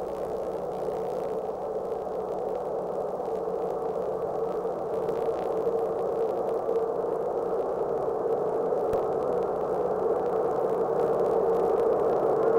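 Steady hiss of static, slowly growing louder.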